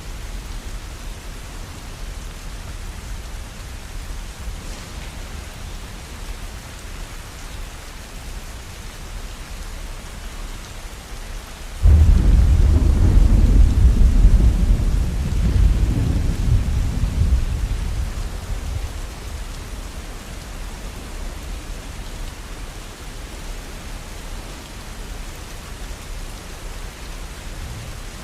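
Steady rainfall, with a sudden loud clap of thunder about twelve seconds in that rumbles low and fades away over the next six seconds or so.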